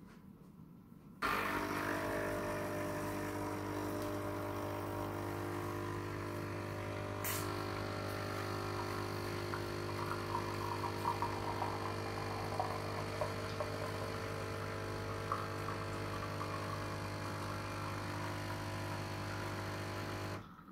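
Nescafé Dolce Gusto Genio S capsule coffee machine's pump running with a steady hum as it brews an espresso, switching on about a second in and cutting off just before the end. A single sharp click comes about seven seconds in, and irregular crackles sound through the middle of the brew.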